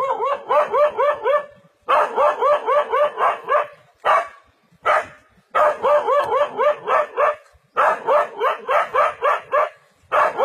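A dog barking defensively at a leopard in rapid runs of about five short barks a second. Each run lasts a second and a half to two seconds, with brief pauses between runs.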